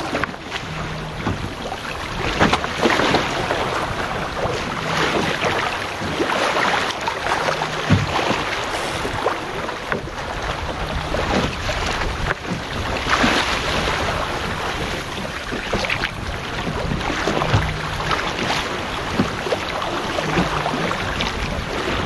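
Wind on the microphone and water rushing and splashing along the hull of a Goat Island Skiff under sail in small waves, surging every second or two.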